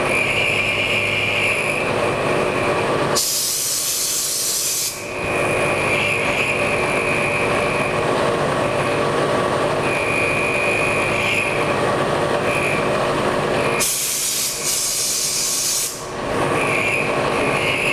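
CNC milling machine running a program, its quarter-inch end mill cutting a white plastic block, with a high whine that comes and goes as the cutter engages. Two bursts of loud hiss, about three seconds in and again near the end, each lasting about two seconds.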